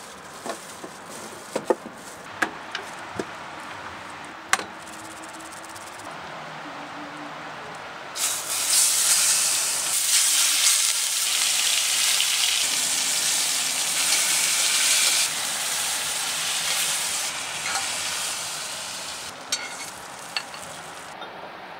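A few sharp clicks and knocks of kitchen things being handled, then about eight seconds in bone-in chops hit a hot pan and sizzle loudly. The frying eases off over the following seconds, with a few more clicks near the end.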